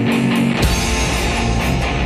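Intro music led by guitar. About half a second in, a deep bass hit comes in, and the low end stays full after it.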